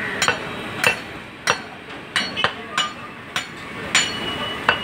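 Butcher's cleaver chopping beef on a wooden stump block: a steady run of sharp chops, about two a second.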